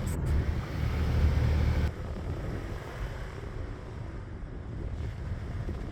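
An off-road vehicle driving: a steady low engine and tyre rumble. About two seconds in it drops suddenly to a quieter, even rumble.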